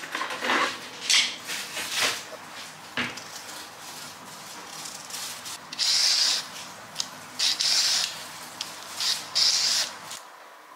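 A carrot being peeled with a handheld Y-peeler: several short rasping scrapes of the blade along the carrot in the second half, after a few seconds of lighter handling noises.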